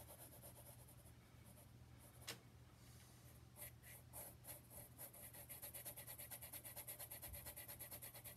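Pencil shading on sketchbook paper: faint, quick back-and-forth strokes that become a fast, steady run about five seconds in, with a single click a little over two seconds in.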